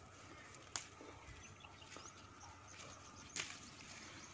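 Quiet hand-picking of bird's eye chilies from the plant: two short sharp snaps, about a second in and a little past three seconds, against a faint steady outdoor background.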